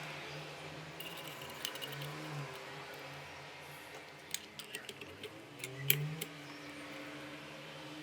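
Light metallic clicks and taps, a quick cluster in the middle seconds with the sharpest one just before the end of it, over a faint steady hum: small metal parts being handled.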